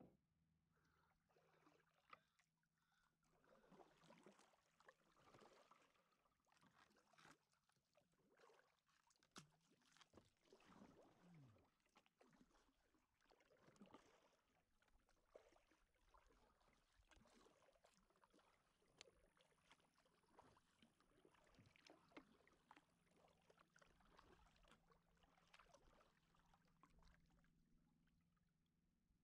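Faint kayak paddle strokes: soft swishes and splashes in the water about every one to two seconds, with small drips and knocks between them.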